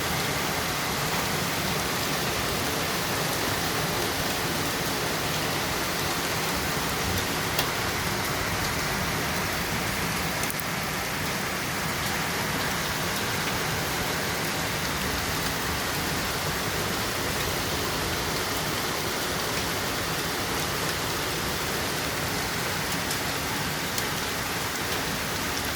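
Steady, heavy rain falling, an even wash of noise with one sharp tap about seven and a half seconds in.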